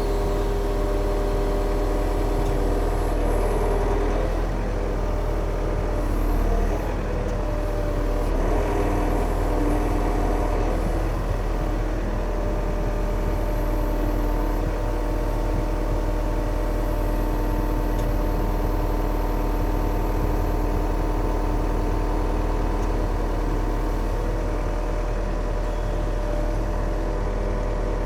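Yanmar machine's diesel engine running steadily, its pitch wavering for several seconds a few seconds in and then settling.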